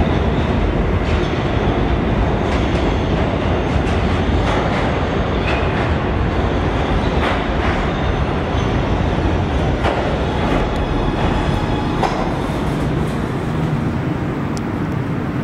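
Kawasaki R211T subway train pulling into an underground station with a steady, loud rumble and a few sharp clicks from wheels on the track, slowing to a stop near the end.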